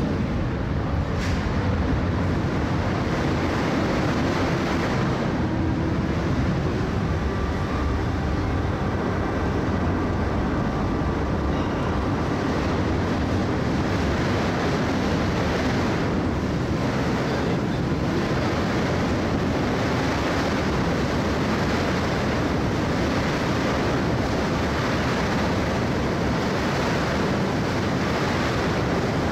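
Steady vehicle noise: a constant low engine drone under an even rush of wind.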